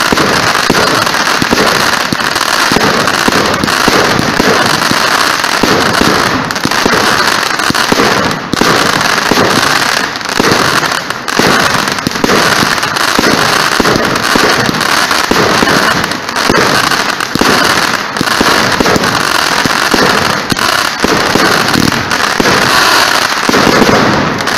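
Fireworks firing in a dense, continuous barrage of crackling pops and bangs, loud throughout, with crackling comets bursting in showers of sparks.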